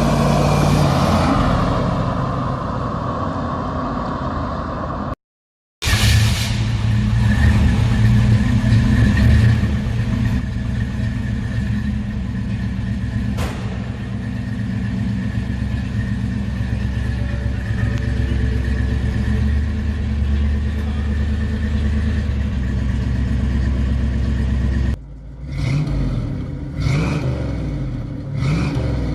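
1969 Ford Mustang engine and exhaust running loud, then cut off by a brief gap of silence about five seconds in. It settles into a steady idle, and near the end it is blipped up in a few short revs.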